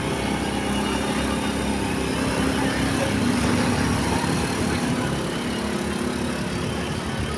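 A bus engine running steadily, a little louder about three seconds in.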